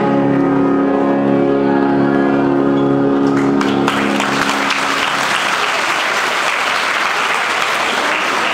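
The closing chord of the music is held and fades out about halfway through as the audience breaks into applause, which then takes over.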